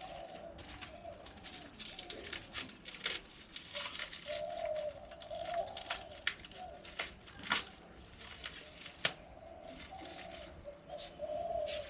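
Pigeons cooing in short repeated phrases, over the crinkling rustle and sharp clicks of bike packaging being handled.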